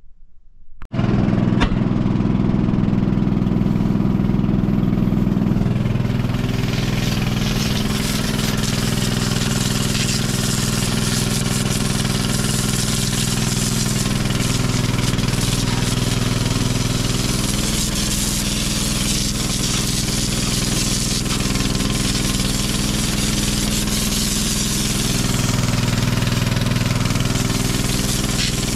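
Pressure washer running, its motor a steady drone, with the water jet hissing as it blasts dirt off the steel track frame and tracks of an old crawler dozer. It starts abruptly about a second in, and the spray hiss grows stronger from about six seconds in.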